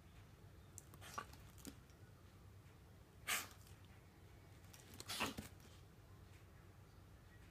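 A border collie puppy making a few short, sharp puffs of noise while going at a bug on the carpet: two small ones about a second in, the loudest a little past three seconds, and a last, longer one about five seconds in.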